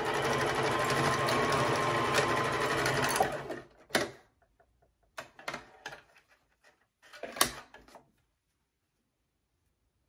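Electric sewing machine stitching steadily at a constant speed for about three and a half seconds, then stopping. A sharp click follows, then a few lighter clicks and rustles as the fabric is pulled out from under the presser foot.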